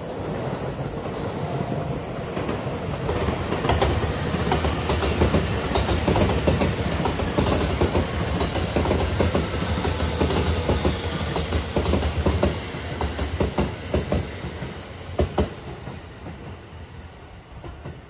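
Rapid Marine Liner electric train (JR West 223-5000 series cars with a JR Shikoku 5000 series cab car) passing close by, its wheels clattering over the rail joints. It builds over the first few seconds and fades away near the end as the train recedes.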